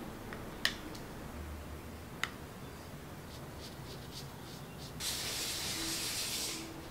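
Paintbrush at work with fabric paint: two light clicks against a plastic paint palette, then a dry, scratchy brushing hiss for about a second and a half as the brush drags across canvas fabric.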